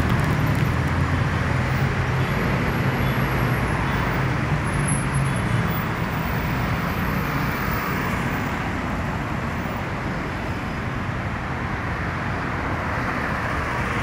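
Steady road traffic on a busy city avenue: cars, a bus and a motorcycle passing, heard as a continuous rush of engines and tyres. A low engine drone stands out over the first five seconds or so, then fades into the general traffic.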